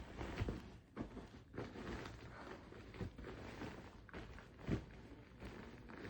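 Irregular soft thumps and rustling as pet dogs shift and paw about, with a sharper knock just under five seconds in.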